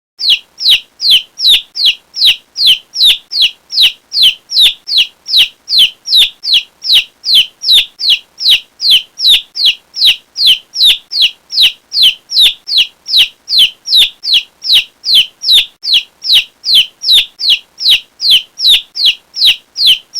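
A chick peeping over and over, about two short, high, falling peeps a second at a perfectly even pace.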